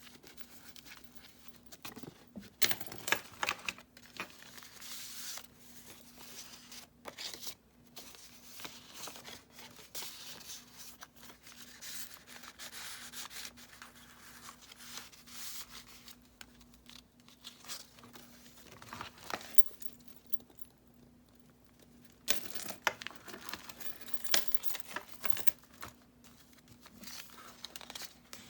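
Paper pages of a handmade junk journal being turned and handled: irregular rustling and crinkling, with sharper, louder crackles a few seconds in and again near the end.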